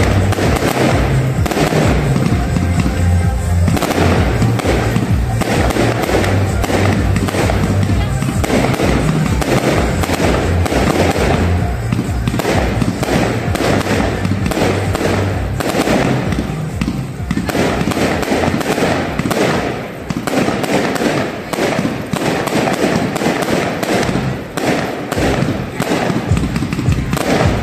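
Fireworks display: aerial shells bursting in a dense, continuous run of bangs and crackles, easing briefly twice in the second half.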